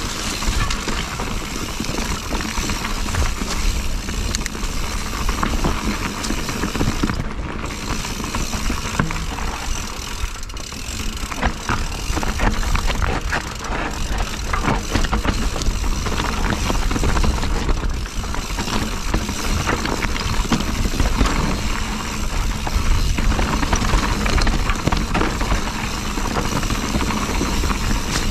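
Mountain bike riding over a rough trail: tyre noise and the bike rattling and clicking over bumps, with wind rumbling on the action camera's microphone.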